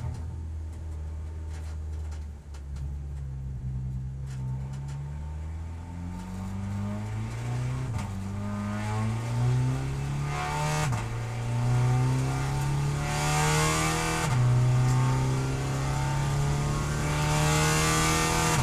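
Volkswagen Scirocco GT24 race car's engine heard from inside the cockpit, accelerating from pit-lane speed up through the gears. The pitch climbs in each gear and drops at each upshift, three or four times, getting louder as the speed builds.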